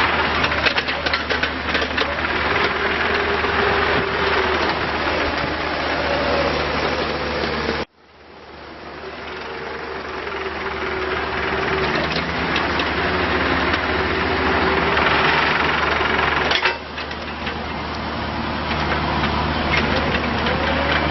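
Bobcat E42 mini excavator's diesel engine running steadily, with a higher whine that wavers in pitch and scattered light clicks. About eight seconds in the sound cuts out abruptly and swells back over a couple of seconds.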